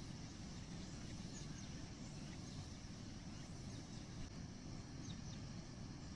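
Faint, steady rushing rumble of floodwater pouring out of a dam's open spillway gates, heaviest in the low range.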